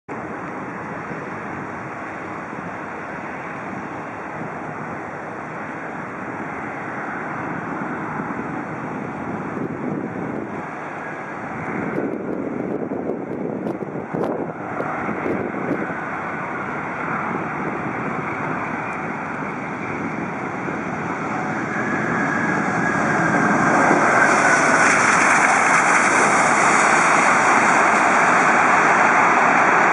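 Jet engines of an Airbus A380-842, four Rolls-Royce Trent 900-series turbofans, running steadily on final approach, then growing much louder about two-thirds of the way through as the airliner rolls out on the runway with its spoilers raised after touchdown.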